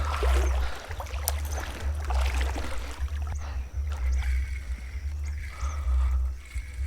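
Wind buffeting the microphone in gusts over the rush of river water, with a few light clicks and knocks.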